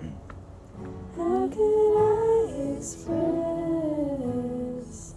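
A woman singing a slow, sustained melody in long held phrases, as music, after a brief lull at the start.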